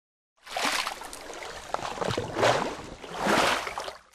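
Logo-animation sound effect of rushing, splash-like whooshes. It starts about half a second in and swells and fades, loudest about two and a half and three and a half seconds in.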